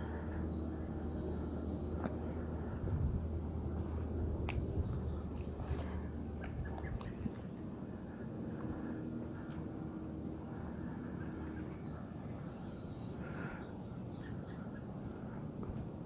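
Insects droning with a steady high-pitched buzz, and a few short bird chirps. A low rumble runs under it for the first seven seconds or so, then drops away.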